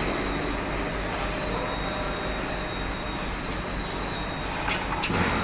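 Steady mechanical workshop noise with two stretches of high hissing, then a few sharp metallic clinks near the end.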